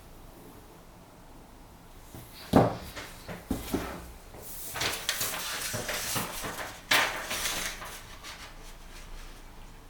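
A sharp knock of handling, then rustling and hissing as a freshly sharpened and stropped Higonokami pocket knife's blade is drawn through a sheet of paper in a cutting test, the rustling coming in two stretches of a second or two each.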